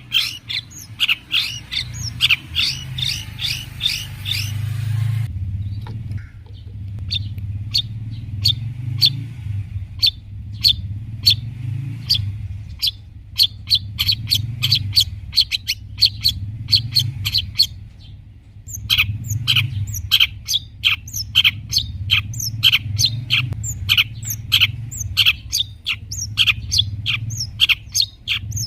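Long-tailed shrike (cendet) singing a rapid run of sharp, repeated chirps, several a second, breaking off briefly about two-thirds of the way through, over a steady low hum.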